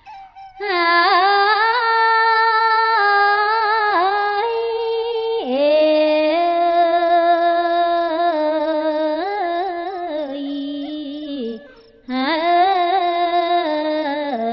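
A woman chanting Khmer smot, Buddhist verse sung unaccompanied in long held, ornamented phrases. She comes in about half a second in, pauses briefly for breath near the end, and resumes.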